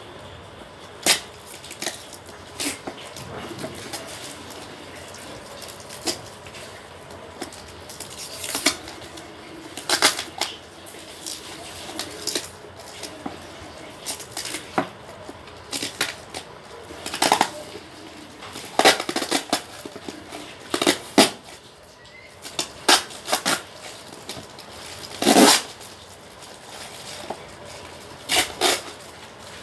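Brown packing tape and wrapping being peeled and torn off a parcel by hand: irregular crinkling and ripping rustles, coming in quick clusters with short pauses.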